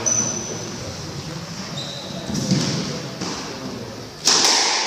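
Squash rally in an echoing court: sharp smacks of the ball off racquets and walls, with short high squeaks of sneakers on the wooden floor early on; the loudest hit comes near the end.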